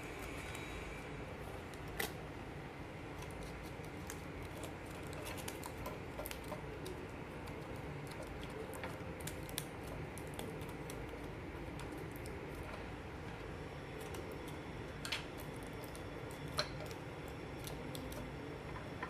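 Scattered small clicks and taps from handling miniature cookware and utensils, with three sharper clicks standing out, over a steady low hum.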